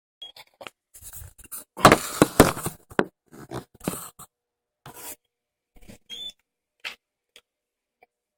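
Handling noise close to a phone's microphone: scattered scrapes, rustles and knocks, loudest in a cluster about two seconds in, thinning out toward the end.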